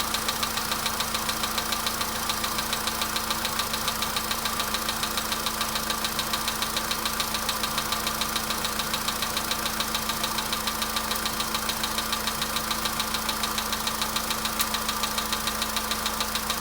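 Volkswagen Polo Sedan's CFNA petrol engine idling with a steady, rapid, evenly spaced knock.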